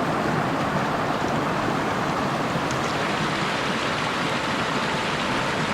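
Freshwater creek running over rocks: a steady, even rush of water.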